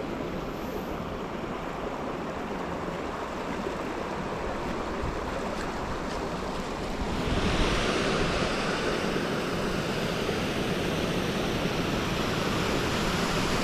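Small mountain creek running over rocks: a steady rush of water that grows louder and brighter about halfway through, as a small waterfall and cascade come closer.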